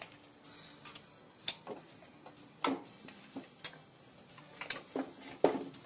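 Screwdriver and small metal parts clicking and tapping against the moped's ignition stator plate: about seven sharp clicks at irregular intervals.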